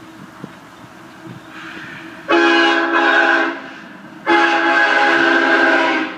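Locomotive air horn on the lead unit of a Canadian Pacific grain train, an ES44AC, sounding two blasts: a shorter one about two seconds in, then a longer one. Each blast is a chord of several steady notes, over the rumble of the approaching train.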